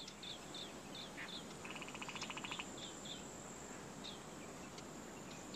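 Faint night ambience of insects chirping, with short high chirps repeating two or three times a second. A louder buzzing trill comes in about two seconds in and lasts about a second.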